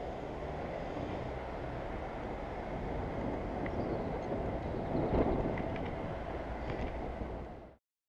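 City traffic and road noise heard from a moving bicycle, a steady rumble and hiss with a louder swell about five seconds in. It cuts off abruptly near the end.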